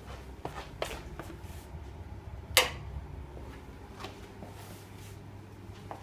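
A few light clicks and knocks, the loudest about two and a half seconds in, over a steady low hum.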